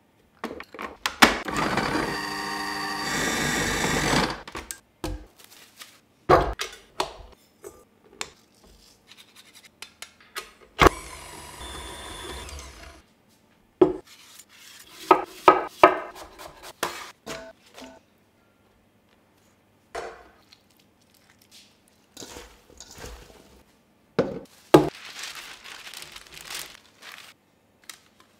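A run of kitchen preparation sounds: a KitchenAid food processor's motor runs for about three seconds near the start, and another steady whirring lasts a couple of seconds about halfway. Between and after them come separate knocks, taps and clatters of cookware and utensils on a wooden bench.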